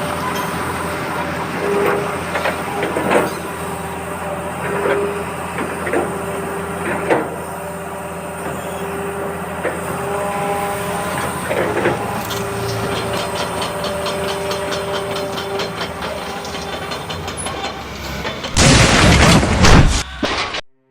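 Small electric motors of a Huina RC excavator whining steadily under load, their pitch coming and going, with sharp clacks every second or so during the first half. Near the end a loud rush of noise lasts about two seconds.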